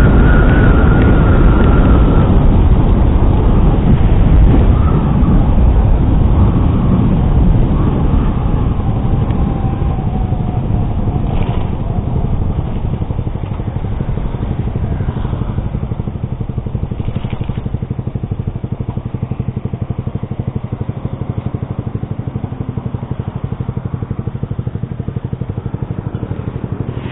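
Yamaha R15 V3's single-cylinder engine running through an SC Project exhaust with a dB killer. It is loud at first, and its note falls slowly over the first ten seconds as it eases off. It then settles to a steadier, quieter run.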